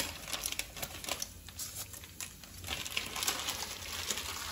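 Whole spices (cumin, shahjeera, cloves, cardamom) frying in hot oil in a nonstick kadai, giving an irregular run of fine crackles and ticks as the bay leaves go in.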